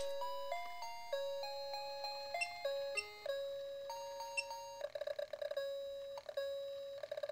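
Electronic toy melody from a B.Duck whack-a-mole game's sound chip, running on about 2 volts from a bench power supply: a simple beeping tune of single notes stepping up and down, broken by a fast warbling trill about five seconds in and again near the end.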